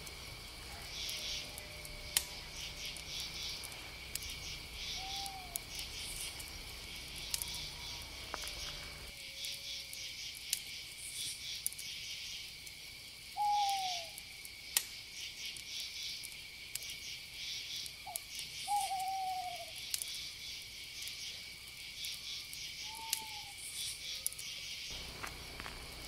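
Night-time woodland ambience: a steady chorus of crickets and other insects chirping in pulses, with a few short falling owl hoots. Occasional sharp crackles come from a small campfire.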